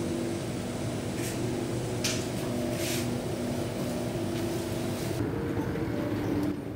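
Cabin noise of a moving metro train: a steady rumble carrying a few steady motor hum tones, with three brief hisses in the first half. Near the end it gives way to quieter station-hall ambience.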